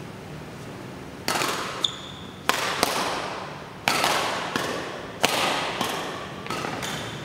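Badminton rackets hitting a shuttlecock in a doubles rally: a string of sharp smacks, about one every half second to second, each ringing briefly in the hall. A brief high squeak, likely a shoe on the court, about two seconds in.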